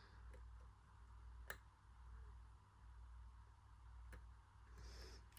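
A few faint, isolated clicks from the padlock and lock-picking tools being handled, the clearest about one and a half seconds in, over a low steady hum.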